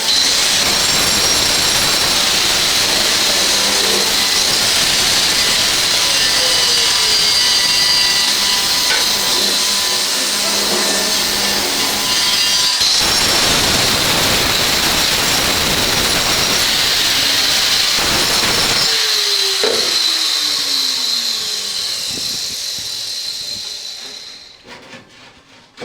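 Electric power tool running at full speed with a high steady whine as it cuts or grinds marble or granite, then running down and stopping near the end.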